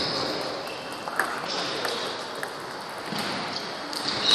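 Scattered light ticks of table tennis balls hitting bats and tables, over the general noise of a large hall.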